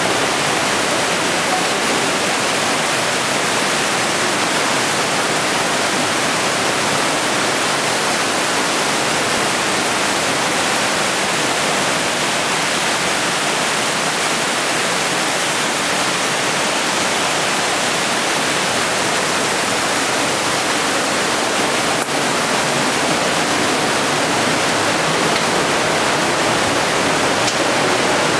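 Loud, steady rushing of a whitewater mountain torrent pouring through a narrow rock gorge.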